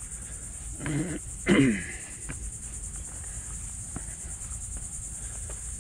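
Steady high-pitched chorus of insects buzzing. About a second in, two short voice sounds break in, the second falling in pitch.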